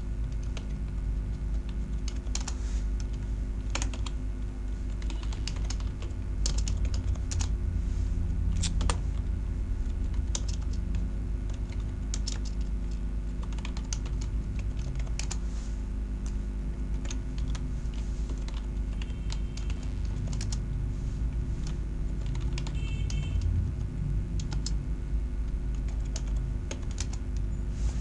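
Computer keyboard keys clicking in slow, irregular keystrokes, over a steady low electrical hum.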